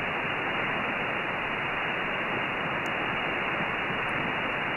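Shortwave receiver hiss on the 20-metre band in upper-sideband mode. It is a steady noise that cuts off sharply at about 3 kHz at the edge of the receiver's 2.9 kHz audio filter.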